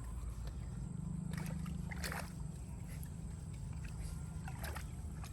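Water sloshing and gurgling as a steady low rumble, with two faint short calls, about two seconds in and near the end.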